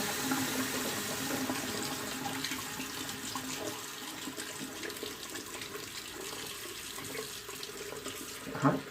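Hot water running steadily from a tap into a sink while a safety razor is held under the stream to heat the blade.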